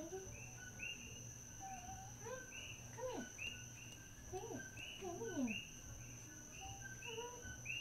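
A night chorus of coqui frogs, many short two-note chirps (a lower note, then a higher rising one) overlapping about twice a second, over a steady high insect whine. Several lower sliding calls rise and fall among them, the loudest about three and five seconds in.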